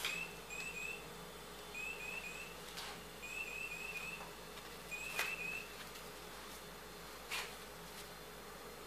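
Electronic chirping dog toy (an Adafruit Gemma chirping-owl circuit with a piezo buzzer, stuffed in a sock) giving short rising chirps in quick runs of two to four as the dog mouths and pushes it. The chirps stop a little past halfway. A few sharp knocks on the hard floor come in between.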